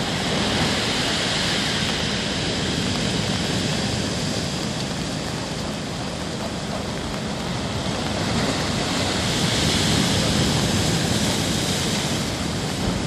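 Storm waves breaking against a concrete seawall and surf washing back, a steady rush of water that swells about a second in and again around ten seconds in.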